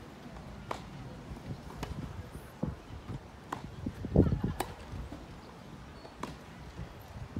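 Tennis rally on a grass court: racquets strike the ball back and forth, about five crisp hits spaced roughly a second and a half apart. There is a louder low thumping about four seconds in.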